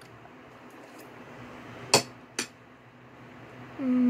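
Two sharp plastic clicks about half a second apart, Lego bricks knocking together, then a short low hum from a closed mouth near the end.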